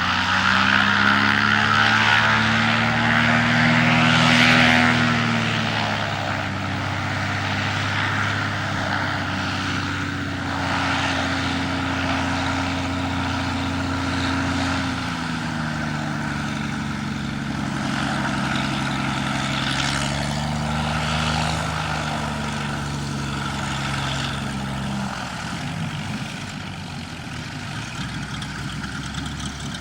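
Cessna Agwagon agricultural plane's piston engine and propeller running as it flies by low, loudest about four seconds in. The engine note then drops and rises again a few times as it manoeuvres while topdressing.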